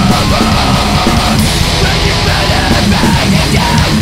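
Loud heavy metal-style rock music, dense and steady.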